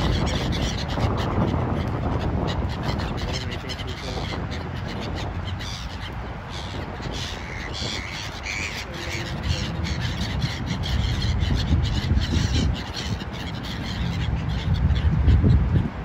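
A flock of gulls calling, many short harsh calls overlapping one another, over a low rumble that swells near the end.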